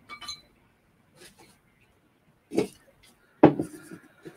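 Objects being handled: a few short knocks and clicks, the loudest about three and a half seconds in with a brief ring after it.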